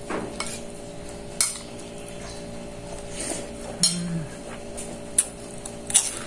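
Metal spoon clinking and scraping against a ceramic plate during eating, with a handful of sharp clinks spread through. A steady low hum runs underneath.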